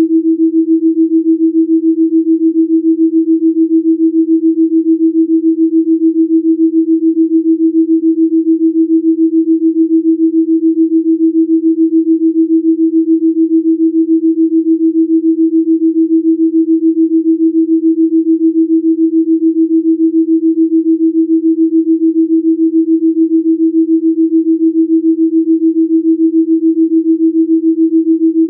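Rife-frequency pure sine tone held steady at one pitch, pulsing evenly in loudness from a delta binaural beat.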